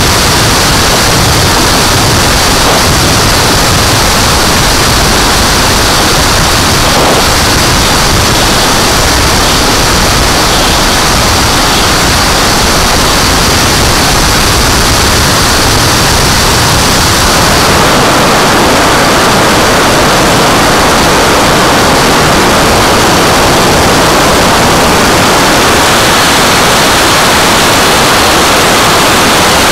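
Turbine-powered RC jet in flight, heard from a camera mounted on the airframe: a loud, steady rush of turbine and airflow noise. About 17 seconds in the sound shifts, losing its low rumble and turning to a higher hiss.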